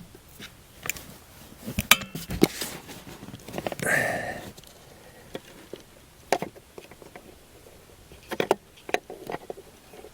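Scattered clicks, taps and scrapes of hand-tool work as a nut driver backs small screws out of a plastic heater housing to free the blower motor resistor. A brief rustling scrape comes about four seconds in.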